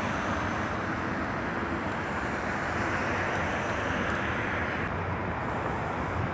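Steady outdoor noise of city traffic, an even rushing hiss with no distinct events; the hiss loses some of its top end about five seconds in.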